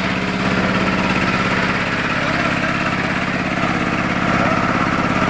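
Fishing boat's engine running steadily with an even, rapid pulsing beat.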